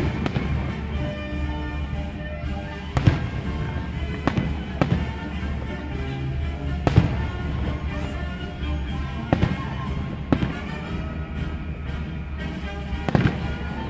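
Aerial firework shells bursting overhead with about ten sharp bangs at uneven intervals, over music that plays throughout.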